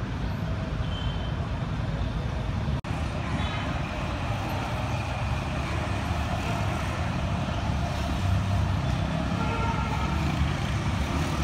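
Outdoor ambience with a steady rumble of road traffic.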